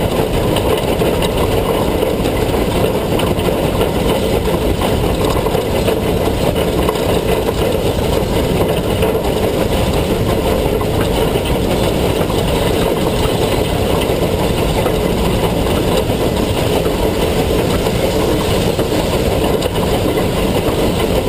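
Narrow-gauge steam locomotive 487 running along the track, heard from a camera at its headlight: a loud, steady rush of wind and rumble of the running gear, with no distinct exhaust beats.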